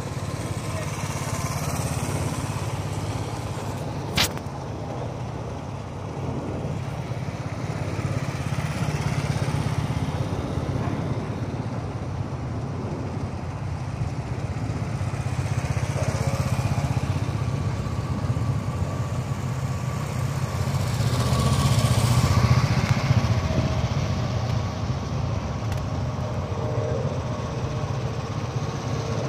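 Motorcycle engines running steadily as bikes ride past one after another, swelling loudest about ten seconds in and again a little after twenty seconds. A sharp click about four seconds in.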